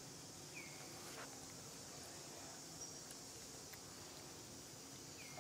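Faint forest ambience: a steady high insect drone, with a short falling bird chirp about half a second in and again near the end, and a few soft clicks.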